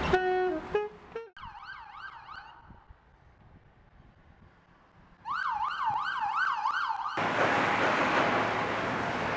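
A street saxophone plays a few held notes, then an emergency vehicle siren yelps, rising and falling about two and a half times a second: faint at first, then loud for about two seconds. Near the end a loud, steady rushing rumble takes over, an elevated train passing.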